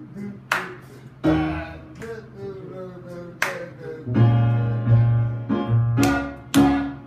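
Music on an electric keyboard, with held chords and several sharp percussive hits.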